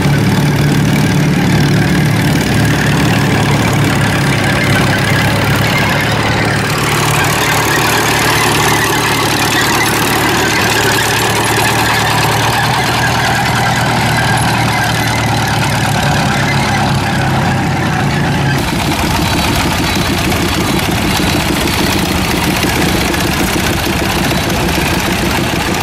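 Old engine running steadily with a low hum. About 18 seconds in the sound changes abruptly to another machine running with a fast, even pulse.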